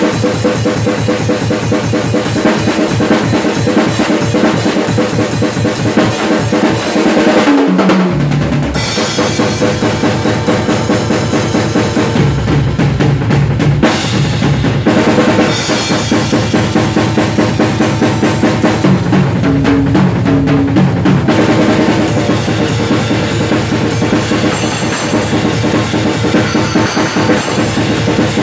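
Acoustic drum kit played fast and busy: bass drum, snare and cymbals in a dense groove, with a tom fill stepping down in pitch about eight seconds in and more tom work around twenty seconds in.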